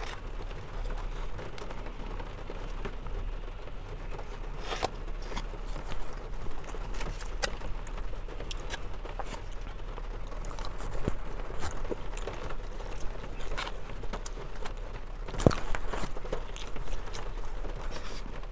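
A plastic spoon scraping and clicking against a foam takeout container as a man eats fried rice, over a steady patter of rain on the car. The sharpest click comes about fifteen seconds in.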